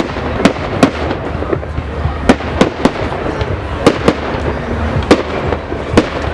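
Fireworks display: a rapid, irregular series of sharp bangs and crackling reports, about a dozen loud ones, over a continuous rumble.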